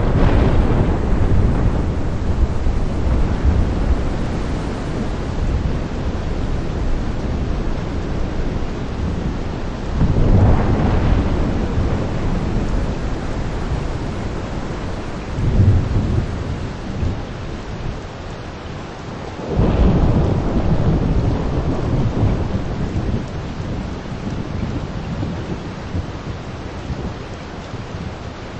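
Heavy rain shower falling steadily, with rolling thunder rumbling four times: at the start, about ten seconds in, at about fifteen seconds, and again at about twenty seconds, each roll fading slowly. The downpour softens a little near the end.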